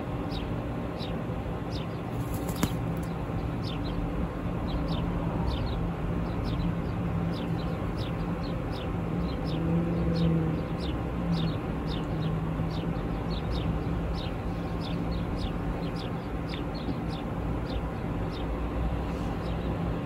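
Baby monk parakeet giving a steady string of short, high, downward chirps, about three a second: the food-begging calls of a hungry chick.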